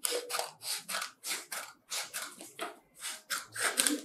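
Metal scissors cutting through sheets of pattern paper in a steady run of short snips, about three a second, with the paper rustling as it is turned along a curve.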